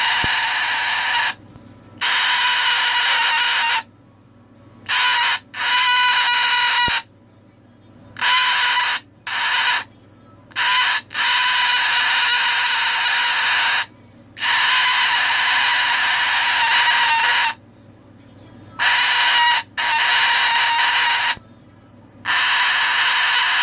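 Pet cockatoo screaming: about a dozen loud, harsh, steady-pitched screams, some short and some held for several seconds, with brief pauses between. A tired, grumpy bird's bedtime protest screaming.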